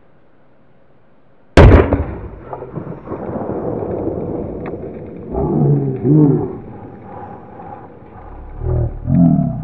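A large firecracker goes off under an upturned enamel pot about a second and a half in: one sharp, loud bang that blows the pot away and echoes off for a few seconds. Later come two loud wordless shouts.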